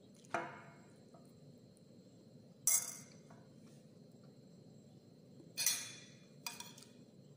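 Four short clinks and knocks of tableware handled during a meal, a couple of seconds apart, the second and third the loudest.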